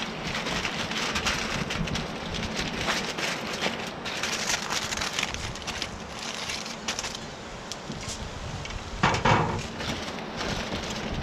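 Aluminium foil crinkling and crackling as it is folded and crimped by hand into sealed packets around salmon fillets.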